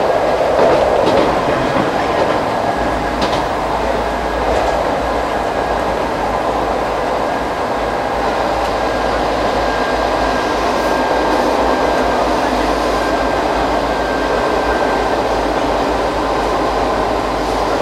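Ichibata Electric Railway 2100 series electric train running at speed, heard from inside the car: a steady rumble of wheels on the track, with a few clicks about three and four and a half seconds in.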